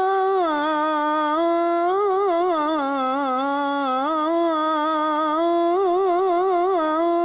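Muezzin's solo male voice chanting the Fajr call to prayer (adhan) in one long, unbroken melodic line. It holds notes that step down and back up, with quick wavering ornaments about two seconds in and again near the end.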